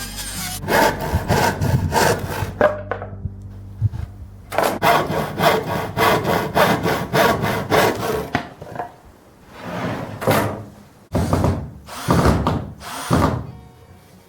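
Hand saw cutting through wood in runs of quick back-and-forth rasping strokes, about three or four a second, with a short pause between runs. Near the end come a few slower, longer strokes.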